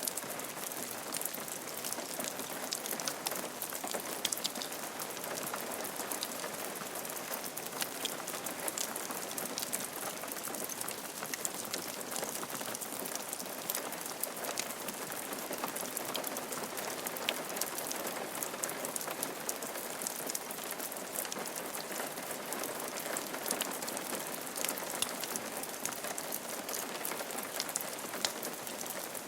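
Steady rain falling on a roof, a dense hiss of drops with many individual drop ticks scattered throughout.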